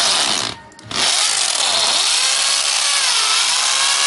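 Bosch GSB 550 impact drill in hammer mode drilling into a concrete block, its motor and hammer action loud. The drilling stops briefly about half a second in, then starts again and runs on.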